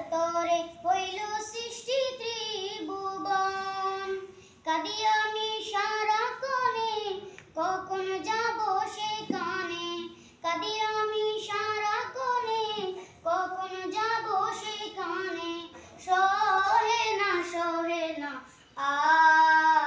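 A group of boys singing together without instruments, the melody in phrases of a few seconds broken by brief pauses for breath.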